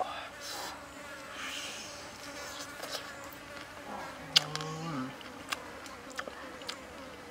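Insects buzzing steadily, with scattered sharp wet clicks from chewing and lip smacking, and a short low hum a little after four seconds in.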